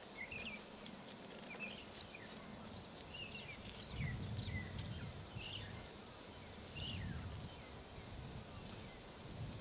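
Birds chirping and whistling in the bush: many short, high calls overlapping. Two louder low rumbles come about four seconds in and again near seven seconds.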